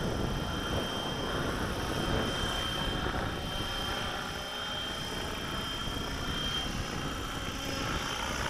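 HK600GT 600-size electric RC helicopter flying overhead: its main rotor and brushless motor running steadily, with a steady high whine that fades out about two-thirds of the way through.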